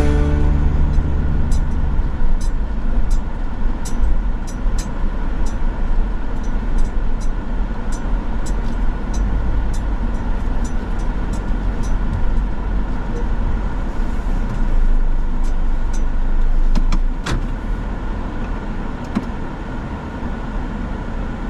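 Car running with a steady low rumble, overlaid by many faint sharp ticks; it gets a little quieter about seventeen seconds in.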